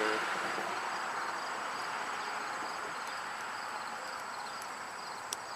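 A steady hiss that slowly fades, with crickets chirping continuously in the background and two faint clicks near the end.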